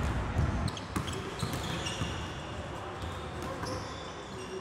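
Basketballs bouncing on a gym floor, a scatter of short thumps at uneven intervals.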